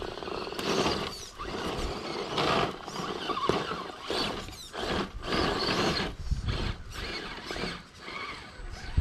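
Element RC Enduro Trail Walker RC crawler climbing a dirt slope: its electric motor and gears whine in short, uneven throttle bursts while the tires scrabble over dirt and grit.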